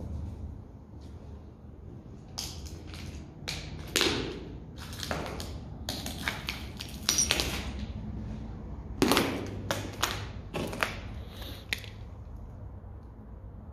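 Footsteps crunching over debris on a littered floor: a run of irregular crunches and clicks that starts a couple of seconds in and stops shortly before the end.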